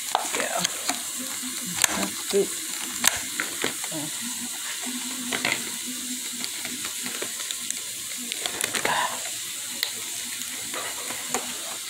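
Plastic food packaging, a clear cupcake clamshell and snack bags, crinkling and clicking as it is picked up and moved, with scattered sharp clicks over a steady hiss.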